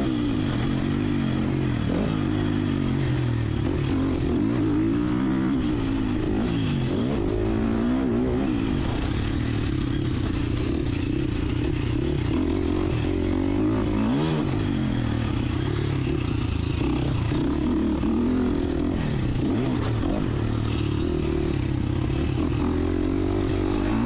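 2019 Husqvarna FC 350 motocross bike's single-cylinder four-stroke engine, heard from on board while being ridden hard, its pitch rising and falling again and again with throttle and gear changes.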